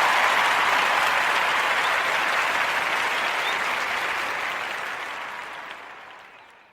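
Applause: many hands clapping in an even wash, fading away over the last couple of seconds.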